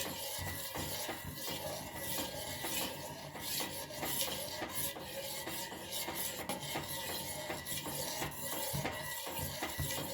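Kadha (ginger water sweetened with jaggery and honey) boiling in a pan on a gas stove: a continuous, irregular crackling hiss of bubbles.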